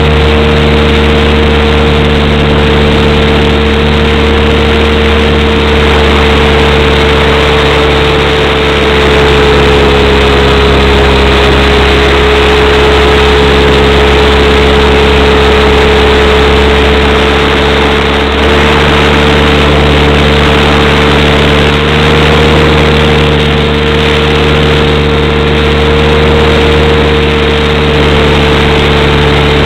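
Motor and propeller of a model aircraft heard from on board: a loud, steady drone with one strong tone that wavers slightly in pitch.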